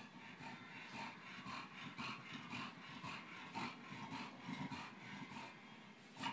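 Noisy, rapid breathing of a snub-nosed dog, about two or three breaths a second.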